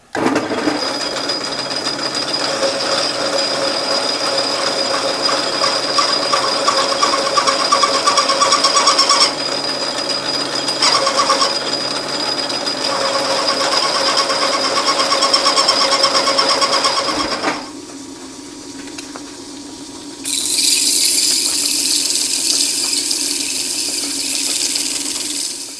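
Metal lathe cutting a chamfer on the edge of a ring, the tool chattering with a loud, steady high-pitched squeal that leaves chatter marks in the cut. About 17 seconds in, the cut stops and the spindle runs on quietly, then a high hissing scrape sets in as abrasive is held against the spinning ring.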